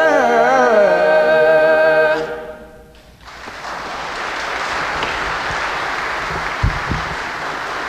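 Choir of mixed voices singing a cappella, holding the final chord on 'never' for about two seconds before cutting off and dying away in the room. The congregation then applauds steadily, with a couple of low knocks near the end.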